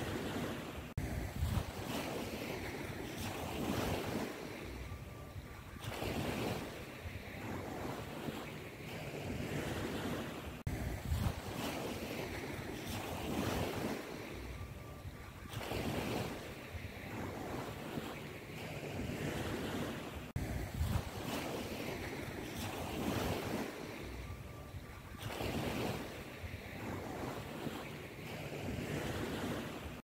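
Ocean surf: waves washing in and drawing back, a swell about every five seconds, repeating as a loop.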